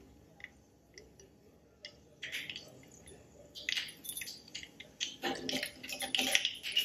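Mustard and cumin seeds crackling and sizzling in hot oil in a small tadka pan: a few scattered pops at first, then a thick, growing crackle from about two seconds in. This crackle is the sign that the tempering is hot and ready for the chana dal.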